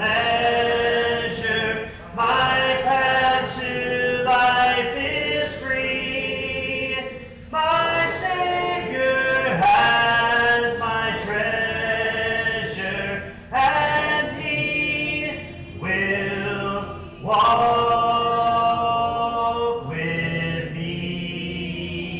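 Congregation singing a hymn a cappella, voices without instruments holding long notes in phrases broken by short pauses.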